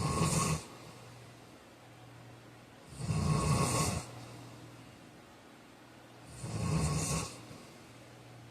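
A man snoring in his sleep. One snore is ending at the start, and two more follow about three seconds and six and a half seconds in, each about a second long, in a steady rhythm. A faint steady low hum runs between the snores.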